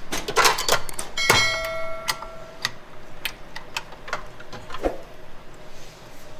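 Stainless steel mixing bowl clanking and clicking as it is handled and seated on a stand mixer. The loudest clank comes about a second in and rings briefly like struck metal, followed by scattered lighter metallic ticks and knocks.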